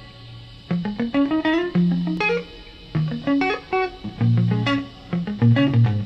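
Background music led by plucked guitar, with sustained low bass notes underneath.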